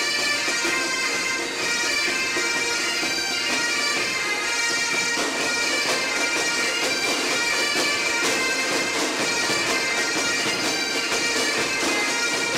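Bagpipe music with steady drones sounding beneath.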